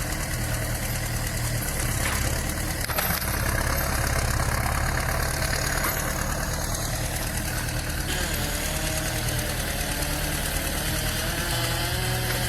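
A large engine idling steadily with a low knocking throb.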